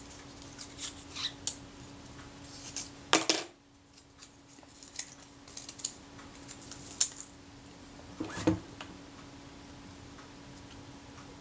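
Light handling sounds on a workbench: the crackle of backing paper being peeled off a self-adhesive leatherette, and small clicks. Two louder knocks, about three seconds in and near eight and a half seconds, come as the camera body is handled. A faint steady hum runs under it all.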